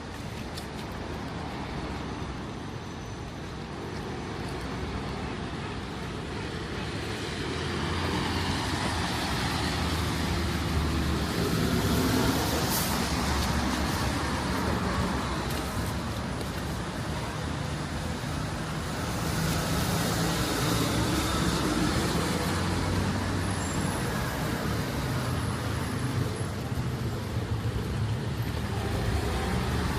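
City street traffic: motor vehicles passing with engine hum and tyre noise, swelling louder several times as vehicles go by.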